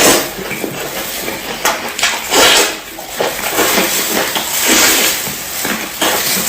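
Crispy food crunched and chewed close to the microphone, in a dense run of crackling bites.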